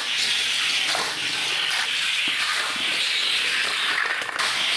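Die-cast toy cars rolling fast along a plastic race track, a steady rushing hiss.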